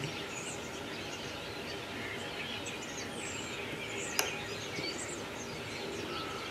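Small birds chirping in the background over a steady hiss, with one sharp click about four seconds in.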